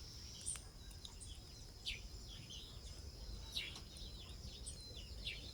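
Chicks chirping faintly: short, falling chirps every second or two. Under them run a thin, steady high-pitched tone and a low background rumble.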